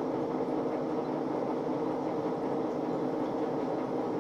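Old Monarch engine lathe running without cutting, spindle set to 319 rpm, giving a steady mechanical hum. The flood-coolant pump is running and coolant is pouring from the nozzle onto the tool.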